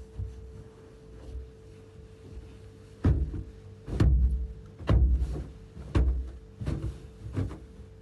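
A series of dull thumps, about one a second, starting about three seconds in, over a steady hum.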